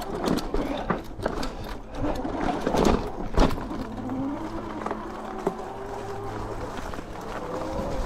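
Electric fat-tire bike riding over a rough trail: irregular rattles and knocks from the bike jolting over the ground, with a rear hub motor whine that rises steadily in pitch from about halfway through.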